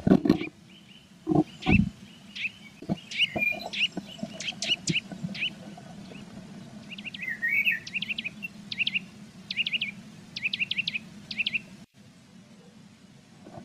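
Blue tits in a nest box chirping and calling in short high notes, then quick runs of repeated notes in small groups. In the first two seconds there are several knocks and scrapes of a bird moving against the box.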